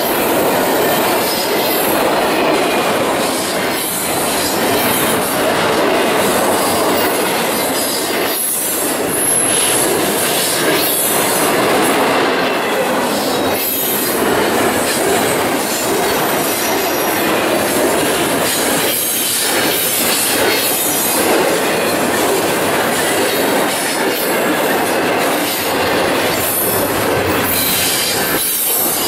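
Double-stack intermodal container train rolling past close by: a steady loud noise of steel wheels on the rails and rattling well cars, with scattered clacks as wheels cross rail joints.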